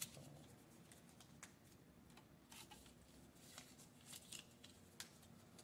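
Faint rustling and crinkling of small paper slips being folded by hand, a few short rustles scattered across a quiet room.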